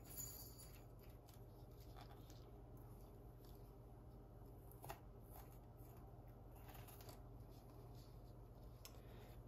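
Faint, scattered scraping and small clicks of a grapefruit spoon hollowing the seeds and membranes out of a fresh jalapeño, over a steady low hum.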